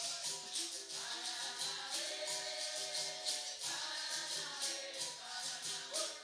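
Capoeira roda music: a chorus of voices sings the response over a steady rhythm of berimbau notes, caxixi rattle and pandeiro jingles.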